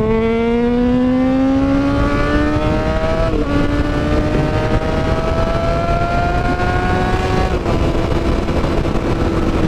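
Honda CBR600RR inline-four with an open, muffler-less exhaust pulling hard: its pitch climbs, dips briefly at a gear change about a third of the way in, climbs again, then drops near the end and holds steadier. Wind rush on the microphone runs under it.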